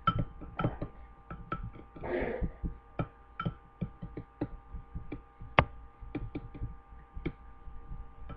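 Metal spoon clinking and tapping against a glass bowl while a thick petroleum-jelly mixture is stirred: short sharp clicks at roughly two a second, over a steady electrical hum.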